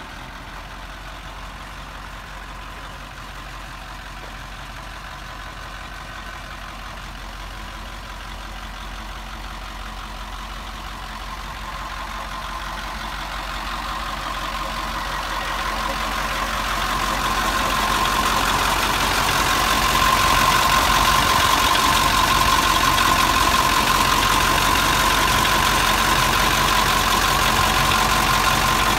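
The 1983 Big A 2500 floater's diesel engine idling steadily, getting louder about halfway through as the engine compartment is approached, with a steady whine on top.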